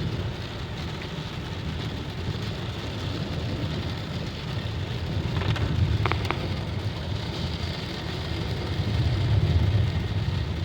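Steady rain and road noise inside a car driving at about 35–40 mph in the rain, with the windshield wipers running on low. A short high note sounds once about six seconds in.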